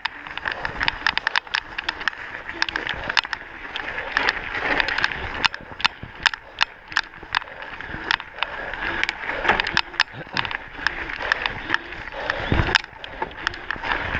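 Mountain bike ridden fast over a gravel and dirt trail, heard from a camera on the rider: a steady rush of tyre noise on loose ground with a rapid, uneven run of clicks and rattles from the bike over bumps. A heavy thump comes near the end.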